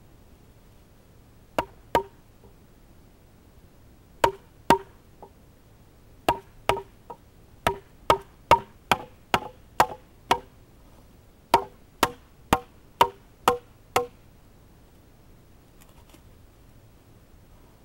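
Wooden baton knocking on the spine of a fixed-blade knife to drive it through a sapling pole: about twenty sharp knocks in uneven runs, each with a short ringing note, fastest in the middle and stopping a few seconds before the end as the pole is cut through.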